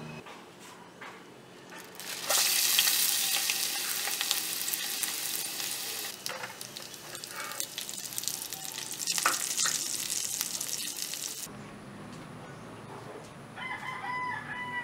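Beef tapa frying in hot oil in a small pan: a loud sizzle starts suddenly about two seconds in, as the meat goes into the oil, and dies away shortly before the end. A rooster crows briefly near the end.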